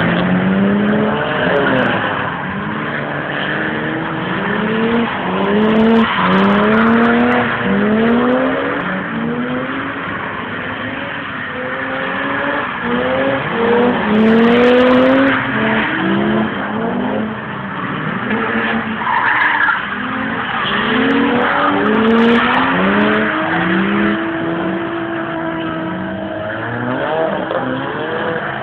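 A BMW drift car's engine revving hard in repeated rising surges while its rear tyres squeal and skid through a sustained drift.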